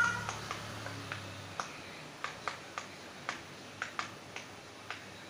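Bubbles of a silicone pop-it fidget toy being pressed in by fingers: a string of small, sharp pops, about three a second at an uneven pace.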